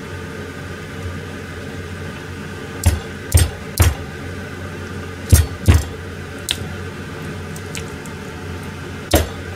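Kitchen knife cutting chicken drumsticks on a plastic cutting board: six sharp knocks of the blade striking the board, in two clusters of three and two, then a single one near the end, over a steady low hum.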